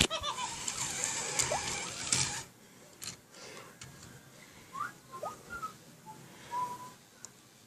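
Coji coding robot playing an electronic sound effect: a dense buzzy burst for about two and a half seconds, then a few short squeaky rising chirps.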